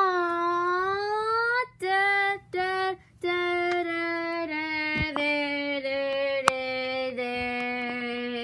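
A child singing without words: a rising note, two short notes, then one long held note that steps slowly down in pitch. A couple of sharp clicks sound partway through.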